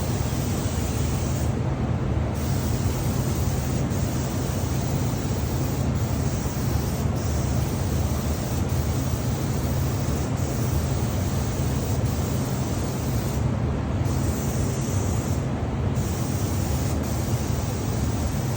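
Spray gun spraying sanding sealer or lacquer onto a white oak table: a steady hiss over a low hum from the air supply, with the hiss thinning briefly a few times.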